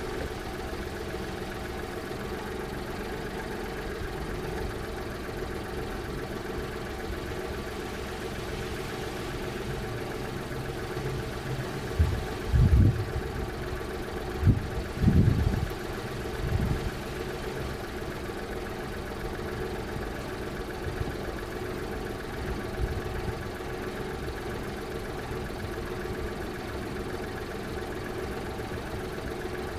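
Small kei car's engine idling steadily. A handful of loud low thumps break in about halfway through.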